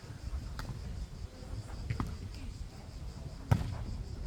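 Wind buffeting the microphone in a steady low rumble, with a few sharp smacks of a volleyball being hit, the loudest near the end.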